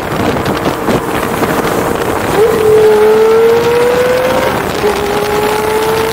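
Straight-piped 5.0-litre V10 of a 2004 Lamborghini Gallardo accelerating hard: the engine note climbs steadily from about two and a half seconds in, drops briefly at an upshift just before five seconds, then climbs again.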